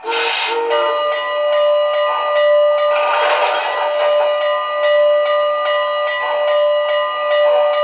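Steam locomotive bell sound from an MTH model engine's onboard speaker, ringing steadily with repeated strikes. A burst of hiss comes at the start and again about three seconds in.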